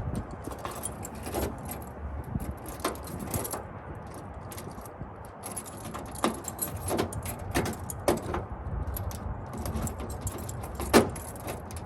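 Keys jangling and a string of sharp, irregular clicks as a key works a newly installed Solex lock cylinder and the door latch of a 1980 Toyota Celica, testing that the lock works; the loudest click comes near the end.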